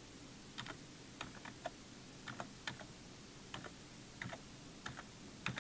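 Computer keyboard being typed on: a dozen or so separate keystrokes at an uneven, unhurried pace.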